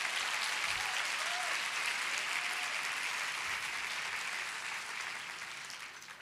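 A women's audience applauding steadily, the clapping dying away near the end.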